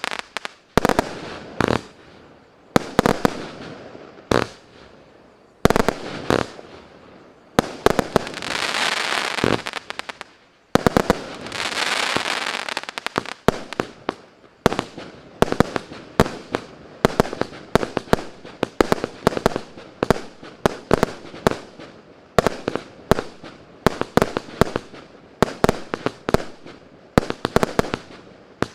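A 150-shot, 0.8-inch consumer firework cake firing: sharp launch shots and bursts, with two stretches of dense hissing about 8 and 12 seconds in. In the second half it fires a fast run of shots, about two to three a second.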